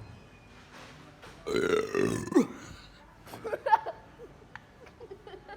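A person burps loudly and at length, starting about a second and a half in, the pitch dropping at the end. A few shorter, quieter sounds follow about a second later.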